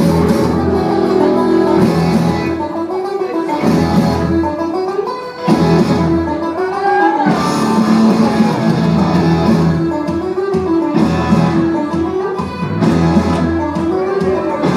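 Entrance music over the arena PA: a guitar-driven song with singing and a steady beat.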